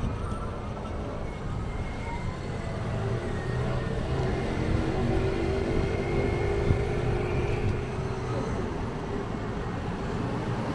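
A motor vehicle's engine passing close by in street traffic, growing louder through the middle and easing off near the end, over a steady low road rumble.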